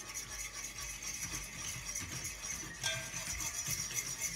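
A metal fork stirring gelatin into hot water in a bowl, tapping and scraping against the bowl in a quick, irregular run of light clinks, with one clearer ringing clink near the end.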